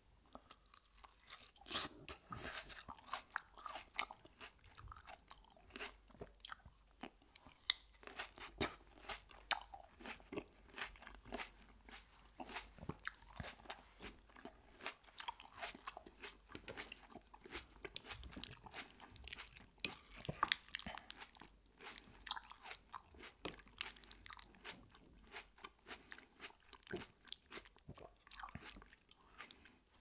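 Close-miked chewing and crunching of food in the mouth: a dense run of small clicks and crackles, loudest about two seconds in and again around twenty seconds in.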